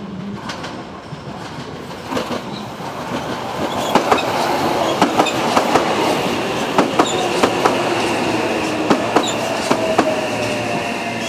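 Meitetsu electric train passing close by, its rumble building and its wheels clacking over the rail joints in quick pairs from about four seconds in. A thin steady high tone runs over it in the second half.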